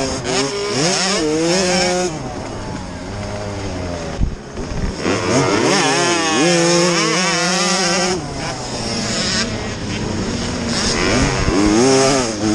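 Off-road dirt bike engines racing, their pitch rising and falling over and over with the throttle.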